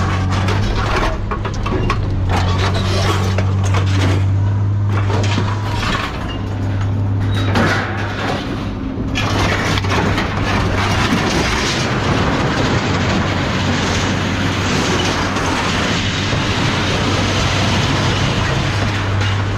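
Scrap steel being thrown off a truck onto a metal pile: repeated clanks and crashes over the steady hum of an idling engine. About nine seconds in the clanking gives way to a steady rushing noise.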